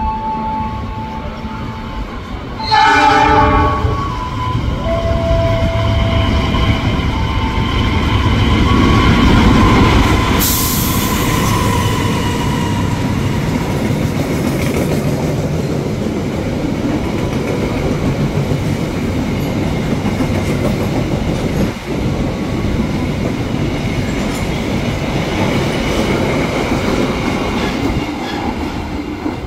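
Diesel-electric locomotive sounding its horn, loudest in a blast about three seconds in. A long passenger train then rolls through the station with a steady rumble and the clatter of wheels over the rail joints, with a brief hiss a little past ten seconds.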